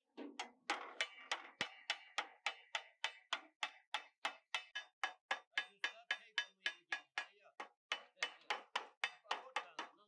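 Hammer striking metal in a steady rhythm, about three to four blows a second, each blow ringing briefly.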